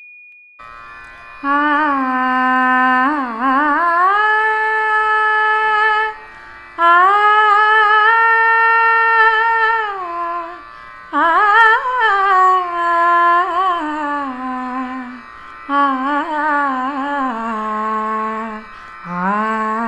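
Indian classical female vocalist singing slow phrases of long held notes with gliding ornaments over a steady drone. There are about five phrases, each separated by a short breath.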